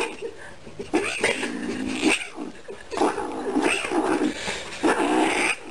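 A kitten yowling over and over: about four drawn-out cries, roughly a second apart.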